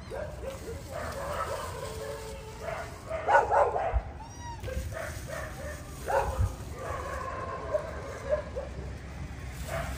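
Dogs barking and yipping in short, scattered calls, loudest about three and a half seconds in and again about six seconds in.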